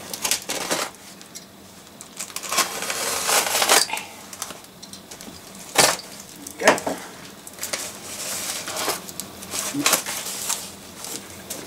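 Cardboard parcel being opened with a utility knife: scraping and ripping as the blade runs through the packing tape and the flaps are pulled, with a few sharp clicks and knocks, including the metal knife being put down on the desk.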